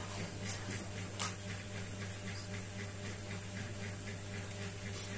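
Quiet room tone: a steady low electrical hum with two faint clicks in the first second or so.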